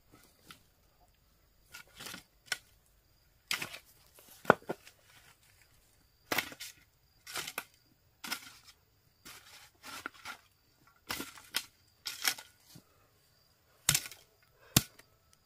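Irregular series of sharp knocks and cracks, roughly one a second, with two louder strikes, one about four seconds in and one near the end.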